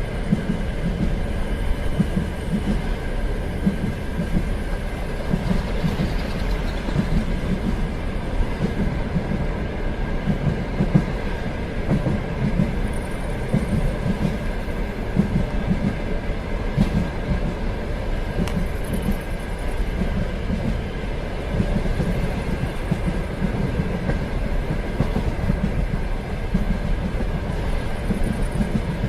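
Train running along the track: a steady rumble with rhythmic wheel clatter over the rails.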